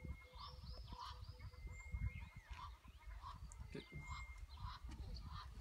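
Egyptian geese honking in a steady repeated series, a little under two honks a second, with other birds calling higher and a low rumble underneath.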